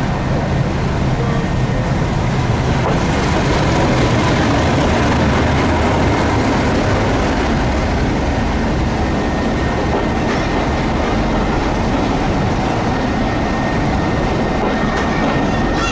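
Diesel train running past on the line: a loud, steady mix of engine and wheel-on-rail noise, with a thin steady whine that comes in about two-thirds through.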